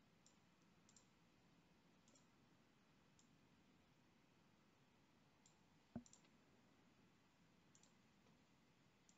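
Faint computer mouse clicks, scattered a second or so apart, over near-silent room tone, with one louder knock about six seconds in.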